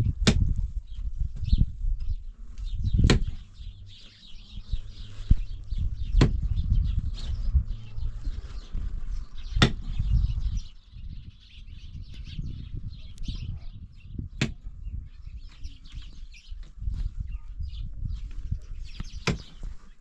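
Metal-headed hand digging tool striking stony ground: six sharp clanks a few seconds apart, with dull thuds and scraping of earth and stones between them.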